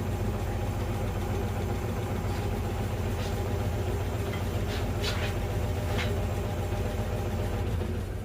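Wood lathe running steadily with a magnolia blank spinning on it: a constant motor hum with a few faint ticks, the sound starting to die away right at the end as the lathe winds down.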